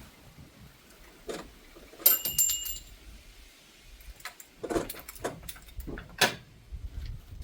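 Metal parts and tools clanking and knocking during strut top bearing work: a sharp metallic clank about two seconds in that rings on briefly, then a run of irregular knocks and clicks, the loudest near the end.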